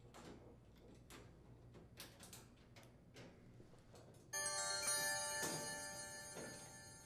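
Faint clicks of a Phillips screwdriver working the sheet-metal screws of an air conditioner's rear grill. About four seconds in, a bright chime sound effect starts suddenly and fades away over a couple of seconds, marking a "sharp edges" warning icon.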